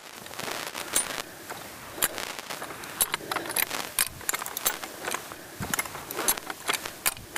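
Hi-Lift jack worked as a hand winch, its handle pumped to take up slack in the steel recovery chain: irregular metallic clicks and clanks from the ratcheting mechanism on the steel bar, with the chain links rattling.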